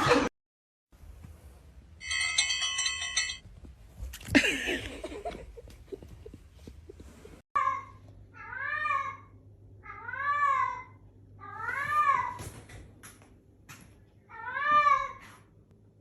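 A cat meowing about five times in the second half, each meow rising and then falling in pitch. Earlier, a short buzzy tone and a brief rustling noise.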